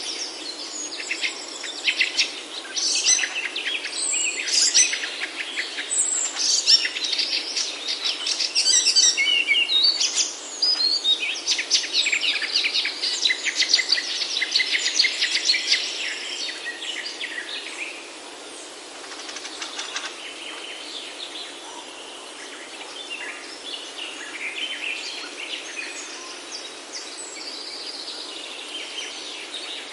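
A chorus of several forest birds singing and calling, with rapid chirps and whistles crowding over one another, thinning out and growing quieter after about eighteen seconds.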